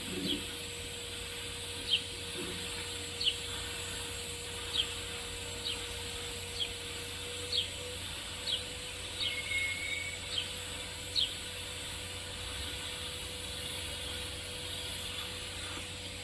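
A bird giving short, falling high chirps about once a second, repeated a dozen times and stopping about two-thirds of the way through, over a steady hiss and low hum.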